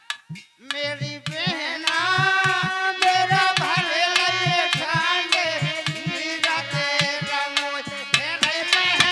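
Instrumental folk bhajan accompaniment: a harmonium plays sustained melody notes over regular beats on a dholak barrel drum. The music drops out briefly at the start and comes back in before the first second is over.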